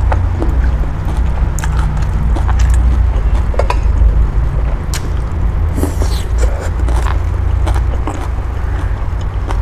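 A person slurping and chewing boat noodles, with short clicks of chopsticks and spoon on the plate, over a steady low rumble.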